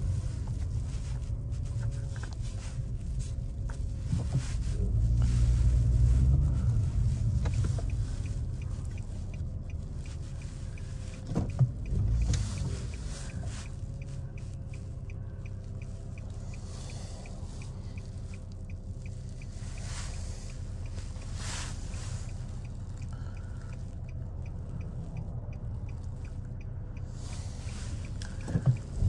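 2013 Nissan Maxima's 3.5-litre V6 idling and creeping along, heard from inside the cabin as a low rumble. The rumble swells about five seconds in, and there is a short bump about twelve seconds in. A faint, steady light ticking runs through the middle.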